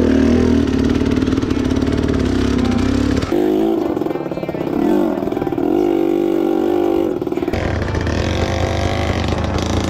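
Enduro dirt bike engine running and revving, its pitch rising and falling. The sound changes abruptly twice, about a third of the way in and again about three quarters of the way in.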